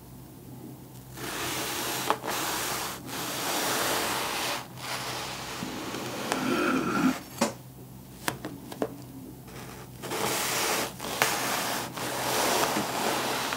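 Kitchen knife sawing through a compressed roll of cotton candy, a dry rasping scrape in several strokes of one to three seconds with short pauses between. A few sharp taps come in between the strokes.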